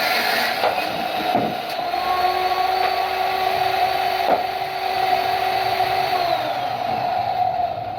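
Woodworking power machinery running with a steady whine, with a few sharp knocks. A second, lower tone drops away about six seconds in.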